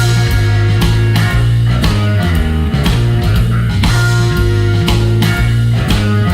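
Blues-rock band music: electric guitar over bass and drums with a steady beat.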